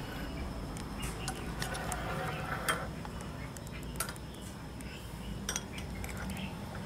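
A metal spoon and a ceramic bowl clinking lightly, a handful of short scattered clinks.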